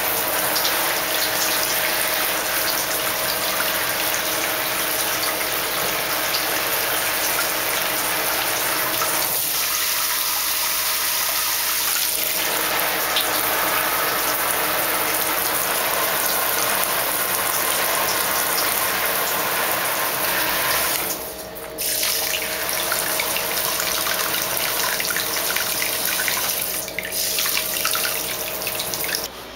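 Shower water running in a steady spray, dipping briefly about twenty seconds in and stopping just before the end.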